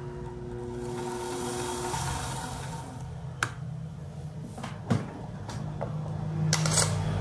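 Small benchtop metal lathe running, its three-jaw chuck spinning with a brass crankshaft held in it: a steady motor hum that shifts about two seconds in, with a few sharp clicks.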